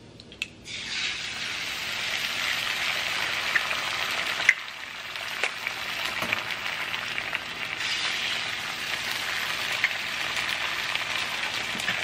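Eggs sizzling steadily as they fry in butter in a nonstick frying pan, after an egg is cracked into the pan with a couple of sharp taps near the start. A sharp tick and a brief drop in the sizzle come about four and a half seconds in.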